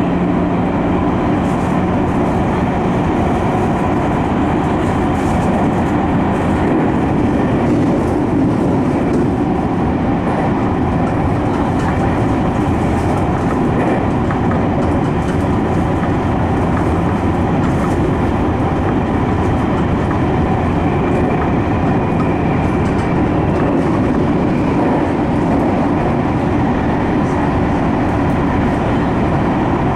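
Tokyu 5050 series electric train running steadily through a subway tunnel, heard from inside the leading car: a continuous rumble of wheels and rails with an even, unbroken level.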